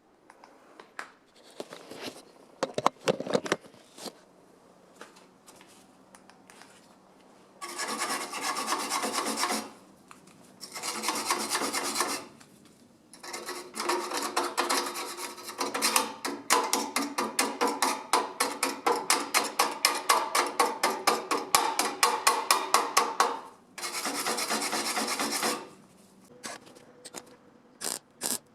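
Rasping back-and-forth strokes of a hand tool working a hard surface, in several runs. The middle run is fast and regular, about three strokes a second, and the runs on either side are longer and steadier.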